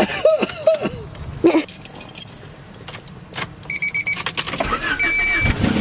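Keys jangling with scattered clicks, then an electronic chime: four quick high beeps, followed by two longer beeps near the end.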